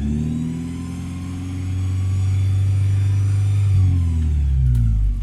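Toyota Celica's 3S-FE inline-four engine revved and held at high rpm, then dropping back toward idle near the end. A thin high whine rises and falls with the revs: the squeal that appears only when the engine is revved.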